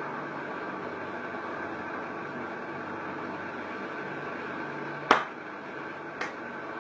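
Steady mechanical hum and hiss of room machinery. It is broken by two sharp slaps of hands about five seconds in and again a second later, the first louder.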